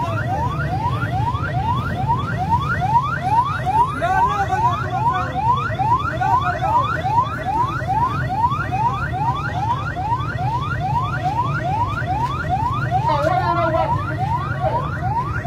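Ambulance siren on a rapid yelp: quick rising sweeps, about three a second, over a steady low din. A brief burst of voices comes through near the end.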